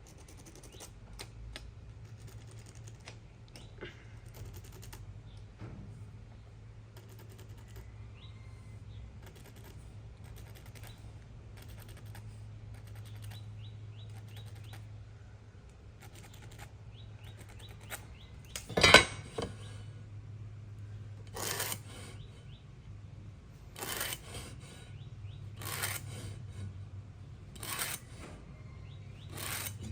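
Hand woodworking on wood: small taps and scrapes, one loud sharp knock about two-thirds of the way in, then short rasping strokes every two seconds or so.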